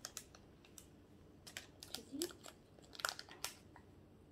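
Small foil packet crinkling faintly in the hands as it is handled and pulled open, in scattered short crackles with a cluster about three seconds in.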